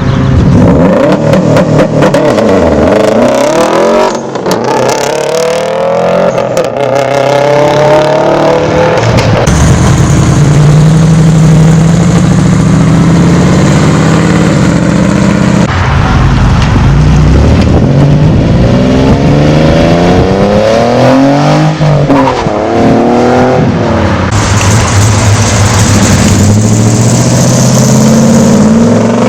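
Loud car engines revving and accelerating, their pitch climbing and dropping back again and again, with a few steadier stretches between the revs.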